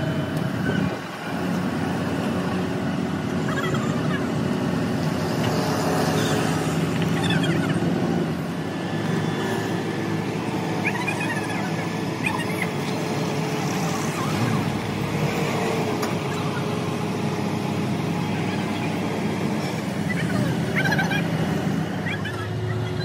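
An engine running steadily, with faint voices mixed in.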